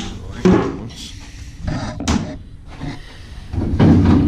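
A few sharp metal clanks and knocks as exhaust parts are worked loose from a race-car chassis. Music starts near the end.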